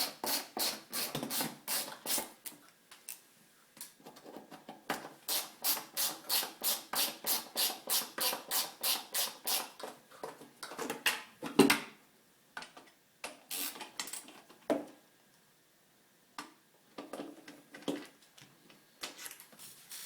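Rapid, even clicking from hand-tool work on the vacuum's bolts with a screwdriver, about four clicks a second in two runs, then one sharp knock a little past halfway and some scattered handling clatter.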